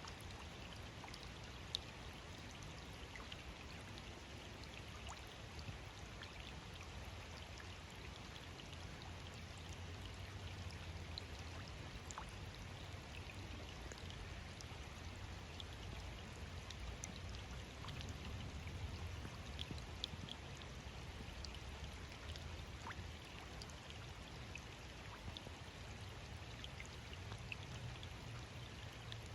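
Steady rain falling, with scattered individual drops ticking sharply on top of the even hiss.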